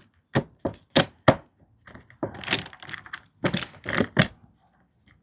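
Saw chain being handled and seated onto the guide bar of a cordless mini chainsaw: four sharp clicks in quick succession, then two longer stretches of rattling as the links are worked into the bar's groove.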